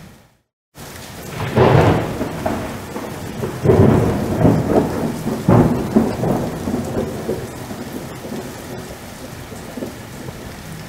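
Thunder rolling over steady rain: a few heavy low rumbles in the first half, dying away toward the end, with the hiss of rain underneath.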